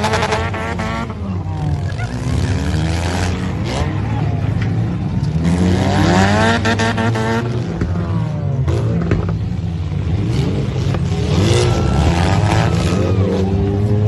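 Several demolition derby cars' engines running together, revving up and down over and over as the cars drive around the pit, with a few sharp knocks just past the middle.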